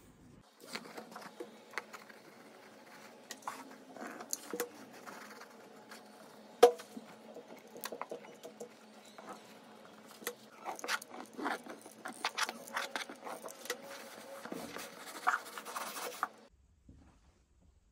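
Hands handling burlap fabric and a cardboard box: irregular scratching, rustling and small taps, with one sharp click about a third of the way in. The handling stops about a second and a half before the end.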